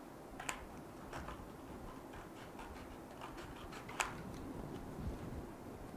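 Scissors cutting a sheet of card: a faint run of small snips and clicks, with two sharper snips, one about half a second in and one about four seconds in.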